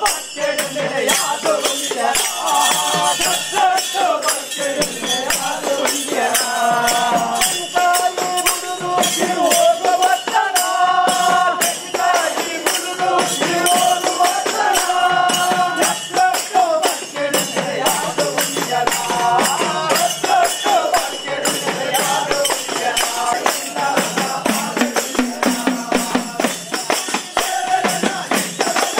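Live ritual music for a bhuta kola dance: a held, wavering melody line over fast, steady percussion with jingling metal.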